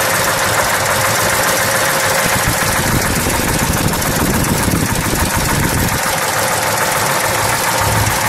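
A car engine idling steadily, a low uneven rumble under a constant hiss of background noise.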